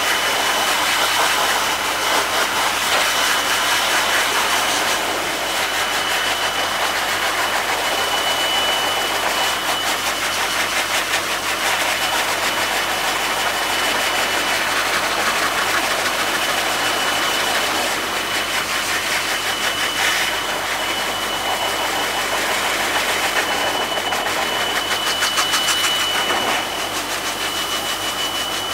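Handheld high-velocity pet force dryer running steadily: a loud rush of air with a thin, high-pitched whine from its motor. The rush dips and swells slightly as the nozzle is moved over the dog's wet coat.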